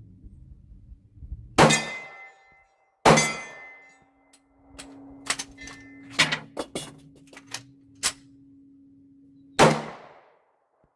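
A Stoeger STR-9 9mm pistol fires two shots about a second and a half apart. Then come several clicks and clacks of a magazine reload, and one more shot near the end.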